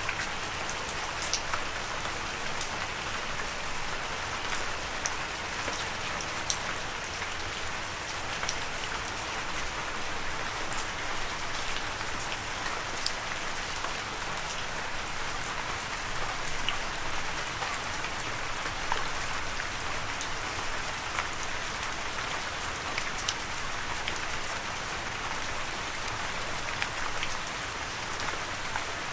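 Steady rain, an even hiss of falling water with many single drops heard as sharp little ticks.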